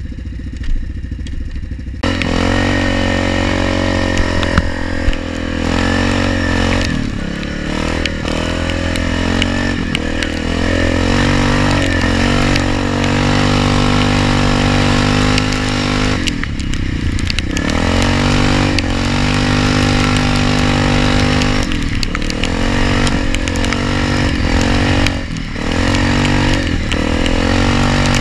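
ATV engine running under throttle on the trail, its pitch rising and falling as the throttle is worked. It is quieter for about the first two seconds, then pulls harder, easing off briefly a few times, around a third of the way in, past the middle and near the end.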